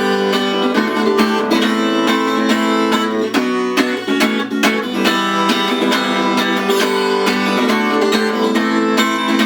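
Acoustic guitar strummed in a steady rhythm, playing chords with no singing.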